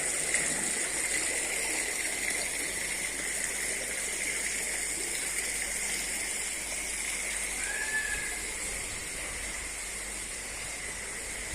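Steady rushing, hissing outdoor noise, with a brief high chirp about eight seconds in.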